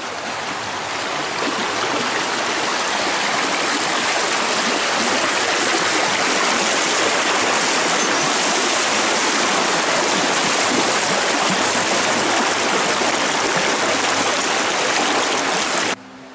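Fast-flowing river rushing and churning over rocks: a loud, steady rush of water that grows louder over the first couple of seconds, then cuts off abruptly near the end.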